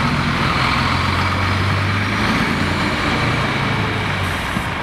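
A heavy vehicle's engine runs steadily at idle as a low hum, over a constant background hiss of street noise.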